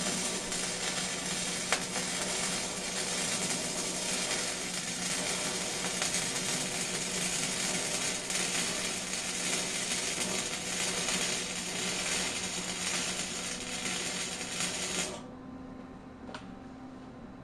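Wire-feed welder arc crackling and sizzling steadily over a low hum as a weld bead is run on a trike-frame gusset; the arc cuts off suddenly about fifteen seconds in.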